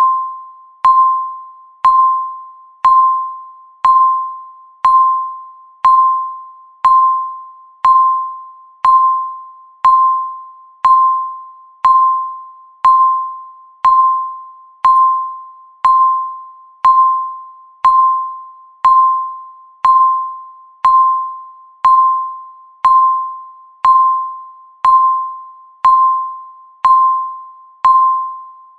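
Countdown timer beeping once a second: a short electronic tone that starts sharply and fades quickly, repeating evenly throughout.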